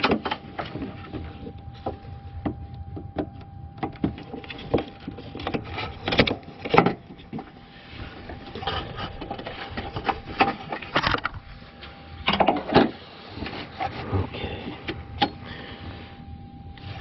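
Irregular clicks, taps and scrapes of a screwdriver and fingers prying a plastic wiring connector off a relay, with a few louder clusters of rattling partway through and a faint steady whine underneath.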